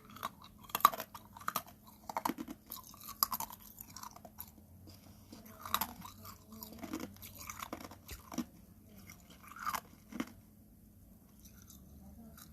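Ice being bitten and crunched between the teeth, a series of sharp, irregular crunches with chewing between them, the loudest about a second in, thinning out near the end.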